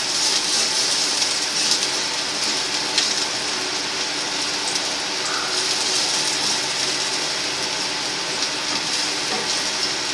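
Chopped garlic frying in hot oil in a stainless steel pot: a steady sizzle with small crackles as it browns.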